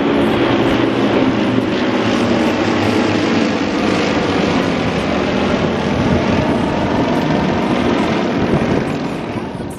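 Engines of a four-ship formation of propeller aerobatic aircraft running steadily overhead as they climb, a continuous engine note over a broad rush of noise that eases off near the end.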